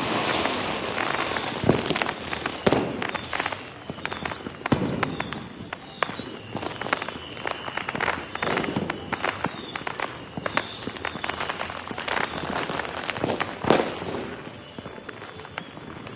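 Fireworks going off in a dense, continuous run of crackling pops. Louder single bangs stand out, the loudest a little before the end.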